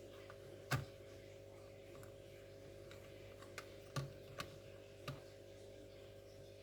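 A handful of sharp, scattered clicks and taps over a steady low hum, the loudest about a second in and another about four seconds in: small laptop parts being handled while the machine is taken apart.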